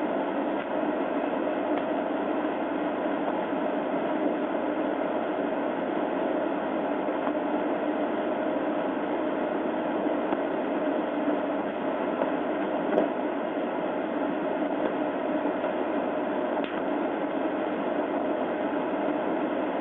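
Steady static-like hiss on a police dashcam's audio, even and unchanging, with one faint click about thirteen seconds in.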